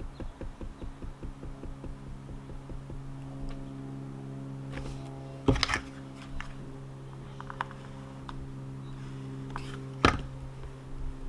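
A steady low hum that pulses at first, with two sharp knocks about halfway through and near the end, and a few faint ticks between.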